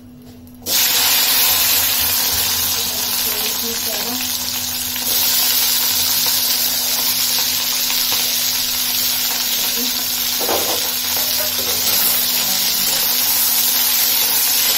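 Chopped sem (flat green beans) dropped into hot oil in a kadhai, sizzling sharply from under a second in and frying steadily, the sizzle growing louder about five seconds in as a spatula stirs the beans.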